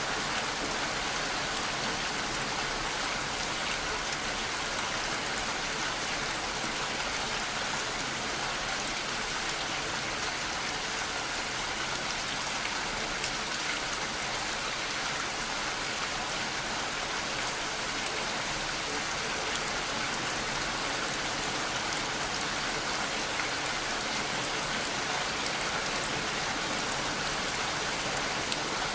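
Steady rain falling, an even hiss with many fine drop ticks, unchanging throughout.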